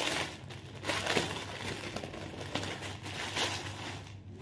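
Plastic packaging bag crinkling and rustling in irregular bursts as clothes are handled and pulled out of it.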